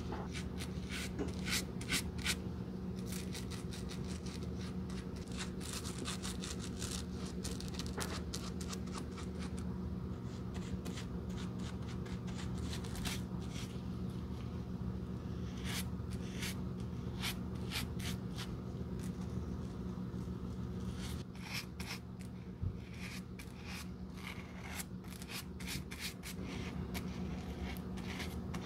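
Small brush dabbing and stroking a wet white coating onto the cork footbed of a Birkenstock sandal: a run of short, scratchy brush-on-cork clicks, with a steady low hum underneath.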